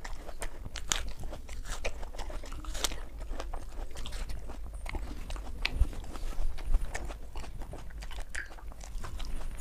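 Raw apples being bitten and chewed with mouth close to the microphone: irregular crisp crunches, over a steady low hum.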